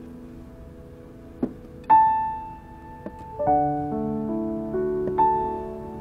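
Soft piano background music: a single high note rings out about two seconds in, followed by a chord and a few more notes that fade slowly.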